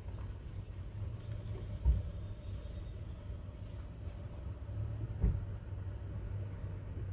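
Steady low hum of a vehicle engine running, heard from inside a car's cabin, with two dull thumps, one about two seconds in and one about five seconds in.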